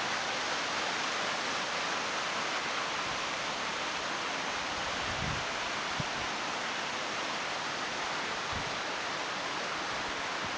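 Steady rush of a creek's flowing water in a gorge, with a few soft low thumps about halfway through.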